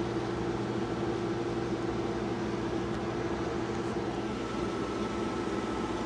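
Window air conditioner running: a steady hum with a faint high whine.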